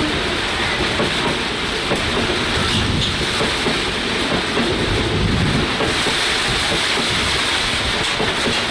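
Linke Hofmann Busch (LHB) passenger coaches rolling past on broad-gauge track, their wheels clacking over rail joints, mixed with heavy monsoon rain.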